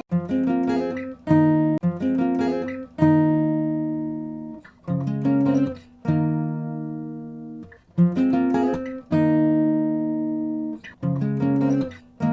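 Background music of an acoustic guitar strumming chords, some struck quickly in pairs and others left ringing for a second or two, in a phrase that repeats about every four seconds.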